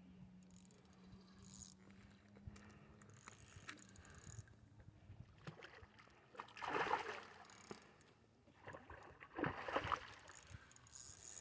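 Faint water sounds, lapping and splashing, with two louder splashy stretches about seven and ten seconds in.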